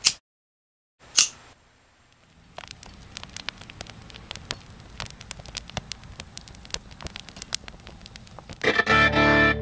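Two short, sharp hissing strikes, then a fire crackling with many small pops. Near the end, music with distorted electric guitar comes in over it.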